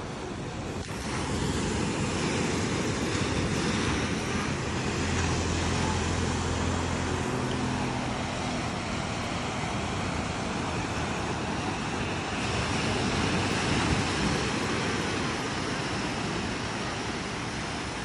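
Steady rush of sea surf washing against a sea wall, mixed with road traffic; an engine hums past about five seconds in.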